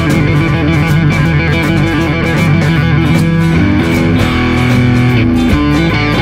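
Blues-rock backing music: an electric guitar riff over bass and a steady drum beat, without vocals.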